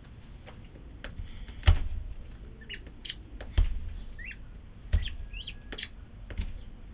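Short, high, rising peeps from a bearded vulture chick in the nest while an adult bends over it to feed it. Four dull knocks sound among the peeps, about one every second and a half.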